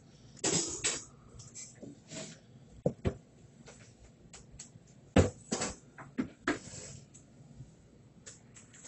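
A few scattered knocks and clicks over low background noise; the loudest knock comes about five seconds in.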